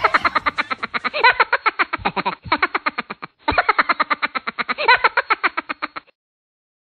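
Electronically processed outro sound effect, chopped into rapid even pulses about a dozen times a second with a wavering pitch running through it; it breaks off briefly about three and a half seconds in and stops abruptly about six seconds in.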